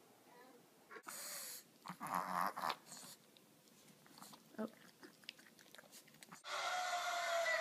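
A small dog making short, uneven vocal noises and scuffling as it plays with a kitten. About six seconds in, a cut brings a louder, steady sound with held tones.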